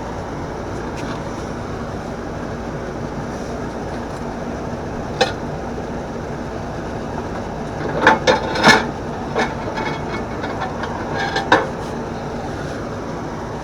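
Steady background hum with a few sharp knocks and clinks, like a plate and baking dish being handled on a counter. The knocks come singly about five seconds in, then as a quick cluster about eight to nine seconds in, then again around eleven and a half seconds.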